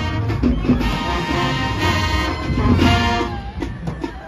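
Marching band playing on the field, brass with sousaphones over a drumline. The music dips briefly in loudness near the end.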